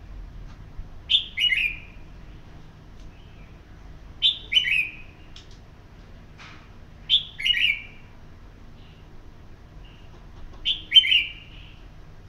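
Red-whiskered bulbul singing a short, bright phrase four times, about three seconds apart.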